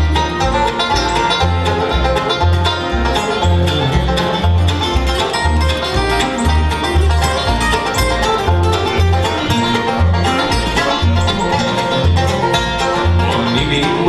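Live bluegrass band playing an instrumental passage: banjo, acoustic guitar and mandolin picking over an upright bass that plucks a steady beat of about two notes a second.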